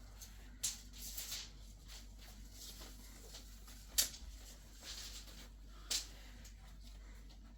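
A few scattered light clicks and rustles against a faint steady background hum, the sharpest click about four seconds in.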